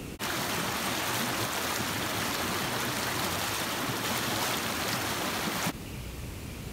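Creek water running over shallow riffles: a steady rushing hiss that starts abruptly a moment in and cuts off abruptly near the end, with quiet bush ambience on either side.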